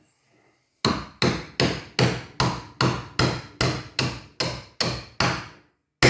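Hammer striking a home-made steel rove punch to drive a copper rove down over a copper rivet pin. There is a steady run of about a dozen ringing blows, roughly two and a half a second, then one harder blow near the end.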